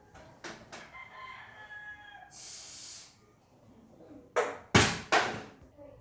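A wavering pitched call with falling tones, then about a second of hiss, then three loud sharp knocks in quick succession near the end.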